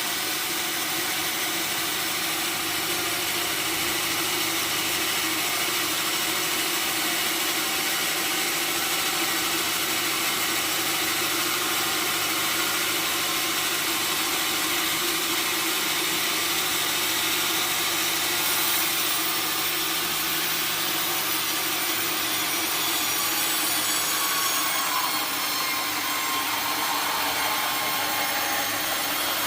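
Sawmill saw cutting steadily through a redwood log: a continuous, even, high-pitched sawing noise with no pause.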